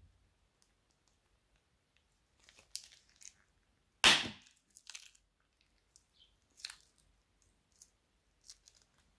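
Small plastic zip-lock bag of slime crinkling in the hands, with one loud crackling pop about four seconds in as the slime is squeezed out through a corner of the bag, then softer crinkles and small clicks.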